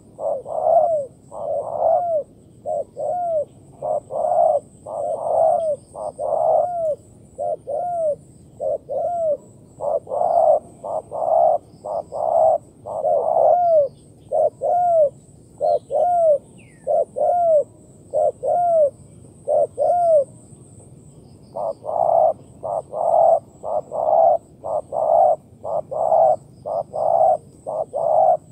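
Spotted doves giving the bowing coo, a fast run of short, low, arched coos at about two a second, with a short break about two-thirds of the way through.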